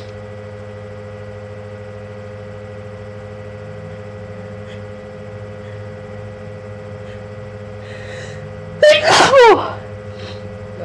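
A single loud allergy sneeze about nine seconds in, a voiced "achoo" that falls in pitch. It breaks through after the sneeze has been held back, with a faint intake of breath just before it.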